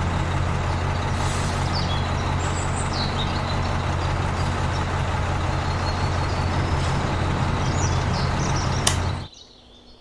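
A small motor running steadily with a low hum and a rough noisy edge, cut off abruptly about nine seconds in.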